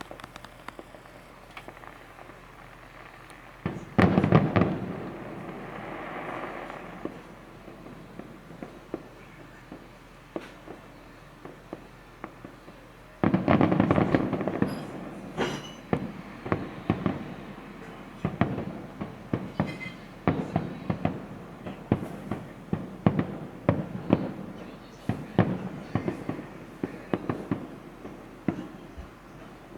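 Aerial fireworks bursting: a loud bang about four seconds in that fades away over a few seconds, then another loud burst about thirteen seconds in, followed by a long run of crackling pops.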